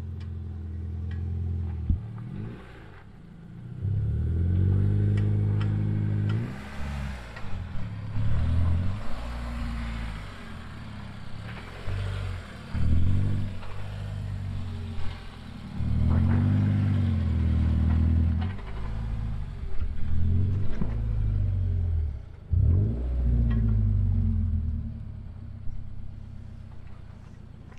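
A Subaru Crosstrek's flat-four engine revving up and falling back again and again as the car is driven slowly over dirt mounds off-road, with a few knocks and clatters in between.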